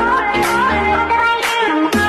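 Background music with a wavering melody over sustained low notes and a regular beat.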